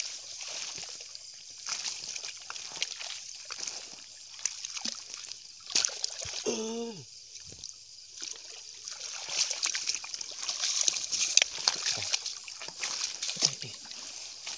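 Water sloshing and splashing among wet weeds as someone wades through lake shallows, with scattered rustles and small splashes over a steady high hiss.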